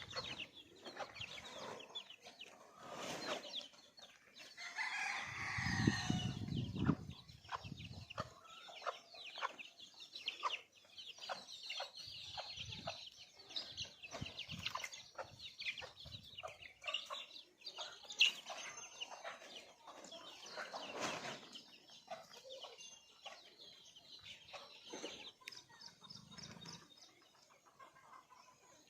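A flock of desi chickens clucking and calling, many short calls overlapping, with a louder, longer call about six seconds in.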